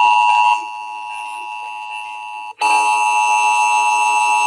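Emergency Alert System attention signal: the steady two-tone alarm tone of a broadcast EAS test. It drops in level just after half a second in, breaks off for an instant at about two and a half seconds, then comes back at full level.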